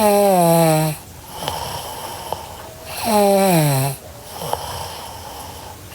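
A girl snoring: two loud snores about three seconds apart, each lasting about a second and dropping in pitch, with softer breathing between them.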